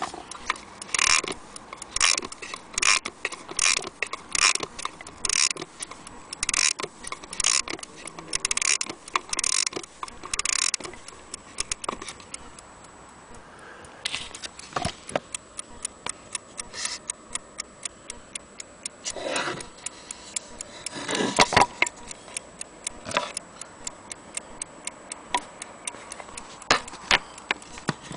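Antique mantel clock's escapement ticking steadily, about two ticks a second and loud at first, then fainter for the rest. A few louder knocks come from the clock being handled about halfway through.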